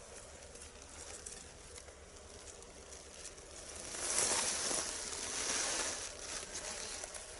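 Rustling and crunching of dry snow and clothing as a snared coyote is handled, growing louder from about four seconds in.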